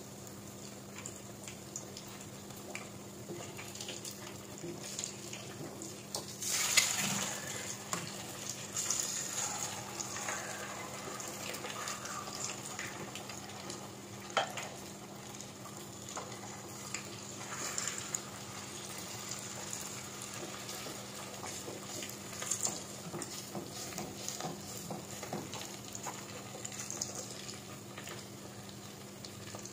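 Battered eggs (kwek kwek) deep-frying in hot oil in a metal pot, a steady crackling sizzle with a louder flare of sizzling about seven seconds in. A metal ladle now and then clinks and scrapes against the pot.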